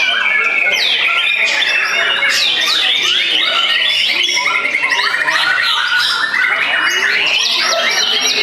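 Several white-rumped shamas singing at once: loud overlapping whistles, chips and rising and falling phrases, with a long rapid trill about halfway through.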